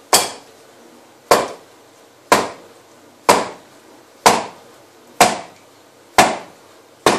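A wine bottle seated in a shoe is knocked heel-first against a wall eight times, about once a second, each a sharp knock that dies away quickly. The knocks are meant to work the cork out of the bottle.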